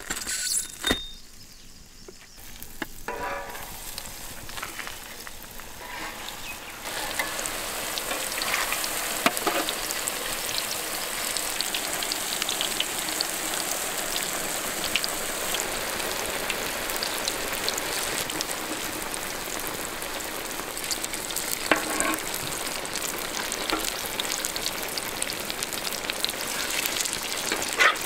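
Potato patties (aloo tikki) deep-frying in vegetable oil in a large kadai: steady sizzling and crackling of the bubbling oil, which grows louder about seven seconds in, with a few sharp clicks.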